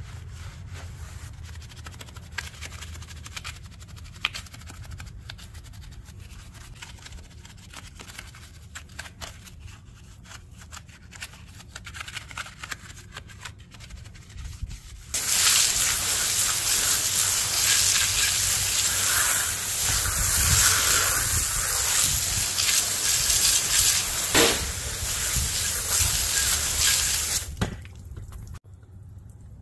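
A brush scrubbing a soapy mesh wheel and tyre, with scattered scratching and clicks. About halfway through, a loud, steady spray of water starts as the wheel is rinsed, and it cuts off suddenly near the end.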